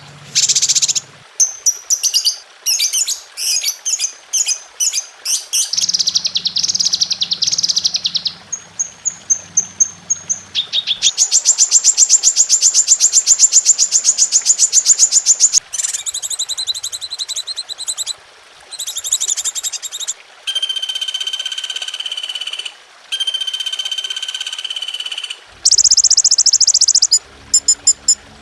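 A spliced run of different songbird calls used as 'masteran' tutor song: rapid chirps, then a fast buzzy trill lasting a few seconds, then steady whistled notes, each recording switching abruptly to the next.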